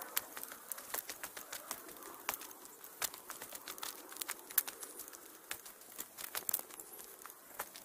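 Footsteps crunching on a hiking trail: irregular sharp clicks and crackles, a few each second.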